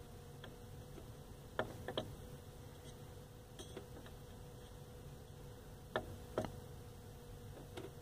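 Clicks of the Vauxhall/Opel Vectra's climate-control buttons and knobs being pressed and turned: two pairs of sharp clicks, about a second and a half in and again about six seconds in, with a few fainter ticks between, over a steady low hum.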